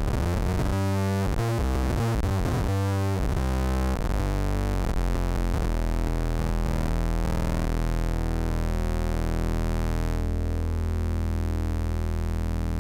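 Electric guitar played through an EarthQuaker Devices Bit Commander V2 analog octave synth pedal, giving synth-like tones. The notes change quickly for the first few seconds, then settle into longer, lower held notes.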